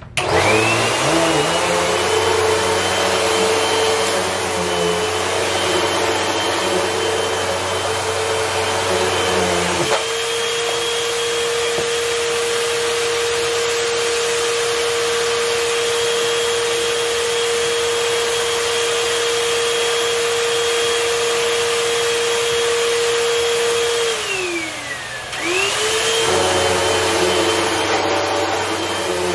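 Hoover WindTunnel upright vacuum cleaner switched on, its motor spinning up with a quick rising whine and then running steadily. A lower rumble drops out about a third of the way in and returns near the end. Shortly before that, the motor winds down with a falling whine and spins straight back up.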